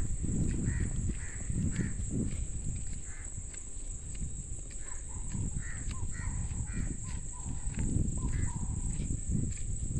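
Birds calling: short calls repeated every half second or so, with a lower-pitched run of calls in the second half, over a low, irregular rumble.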